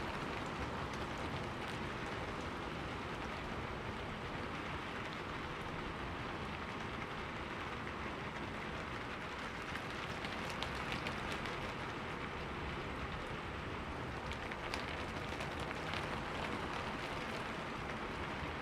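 Steady rain falling on street surfaces, an even hiss with a few sharper drip hits.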